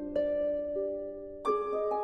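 Instrumental background music of single plucked notes that ring and fade, with a louder, fuller chord coming in about one and a half seconds in.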